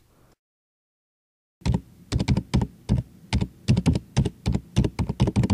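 Typing on a computer keyboard: an irregular run of quick keystrokes, several a second, starting after about a second and a half of silence.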